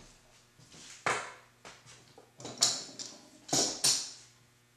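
Hand tools being handled and set down on a wooden workbench: four sharp clatters and knocks, the loudest from about two and a half seconds in.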